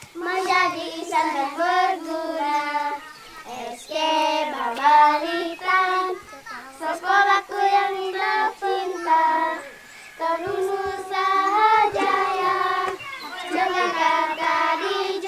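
A child singing a melody in short phrases, with brief pauses between lines and no audible accompaniment.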